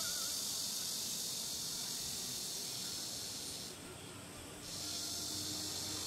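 A steady, high-pitched insect chorus, dropping away for about a second near the middle and then resuming.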